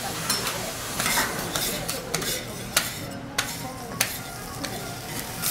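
Food sizzling on a teppanyaki griddle, a steady hiss with short scrapes and clinks of metal utensils every second or so.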